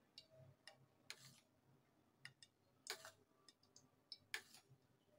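Faint, irregular clicks and short scrapes of a spoon against a glass bowl as batter is spooned over skewered potato slices, with a couple of sharper taps near the end.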